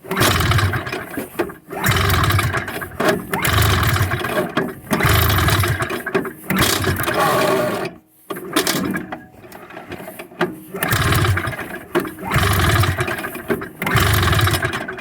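Two-stroke snowmobile engine of a 1981 Ski-Doo Citation SS cranked over again and again, each attempt a short burst about every second and a half, without catching: it is trying to run on vodka as fuel and will not start.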